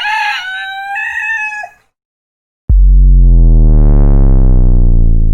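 A rooster crowing once, about two seconds long, a short rising note into a long held one. After a brief silence, a sudden very loud, low, distorted musical note starts and rings on, slowly fading.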